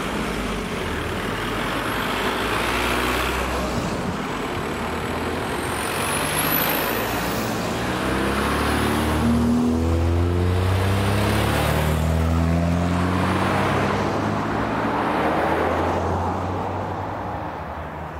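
A line of cars driving over a railway level crossing one after another, their engine and tyre noise swelling and fading as each passes, several in all.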